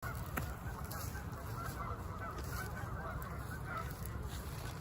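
Geese honking repeatedly, over a steady low rumble.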